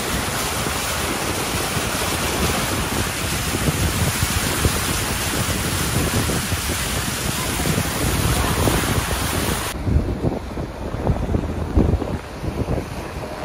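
Wind buffeting the microphone over a steady hiss of traffic and water on a flooded street. About ten seconds in, the high hiss cuts off suddenly, leaving gusty low rumbles.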